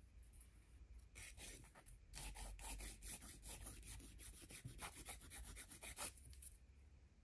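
A flat sanding file is rubbed back and forth over the edge of a small plastic model kit part. It makes a quick run of short, scratchy strokes from about a second in until about six seconds in.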